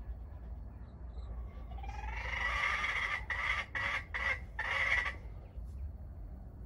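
A rooster crowing: one long crow that rises at the start and breaks into several short parts, about two seconds in, over a low steady rumble.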